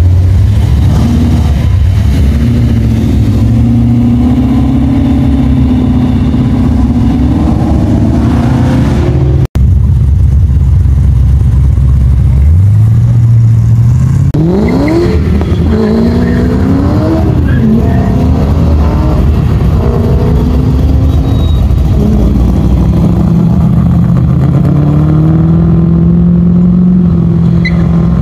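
Engines of classic cars pulling away one after another, loud throughout. About 13 seconds in, one is revved hard, its pitch climbing steeply, followed by more rising and falling revs; the sound cuts out for an instant about 9 seconds in.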